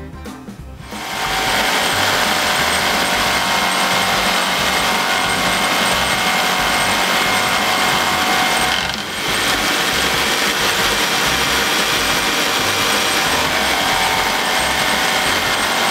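A jigsaw mounted blade-up under a plywood table plate starts about a second in and runs steadily, its blade sawing through a small piece of wood. The sound drops briefly about nine seconds in, then carries on as before.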